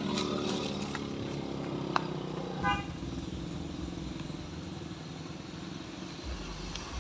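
A motor scooter's engine passes close by, its note falling over the first couple of seconds. A car horn gives one short toot about two and a half seconds in, and car engines and tyres run on the slope through the rest.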